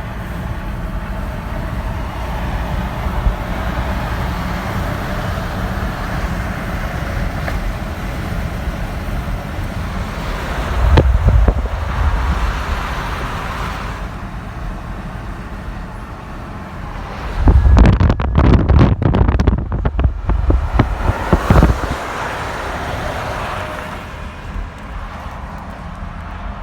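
A vehicle on the move with steady road noise, and two louder spells of low rumbling laced with fast clicking, a short one partway through and a longer one of several seconds later on: the noise the vehicle makes each time it brakes.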